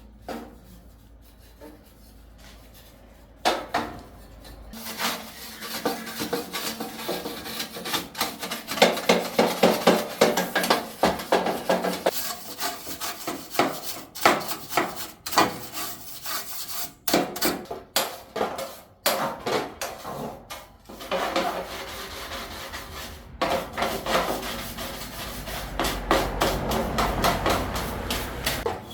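Hand-tool work on metal machine parts: after a quiet few seconds, a long run of irregular scraping and rubbing strokes mixed with sharp knocks and clinks.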